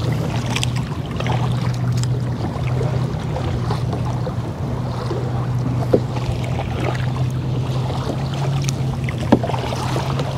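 Double-bladed paddle strokes splashing on alternate sides of a fishing kayak, with water lapping at the hull over a steady low drone.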